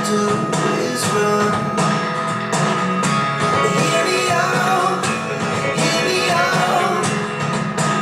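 A song with singing, guitar and a steady beat, played back through Mission M71 bookshelf speakers.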